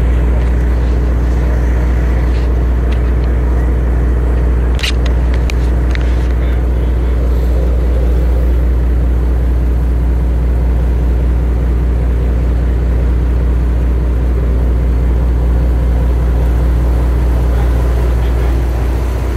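Fishing boat's engine running steadily underway, a loud, even low drone. A few sharp clicks about five seconds in.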